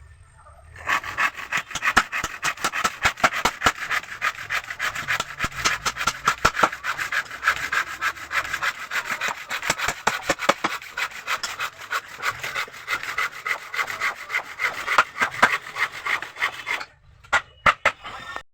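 Wood being worked by hand in fast, steady back-and-forth scraping strokes. The strokes start about a second in and stop near the end, followed by a few separate last strokes.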